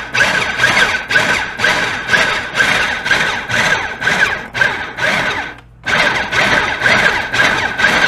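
Food processor pulsed in short, quick bursts, about two a second, its motor whining, with a brief pause about five and a half seconds in. It is cutting butter and cheese into a rice-flour mixture for biscuit dough.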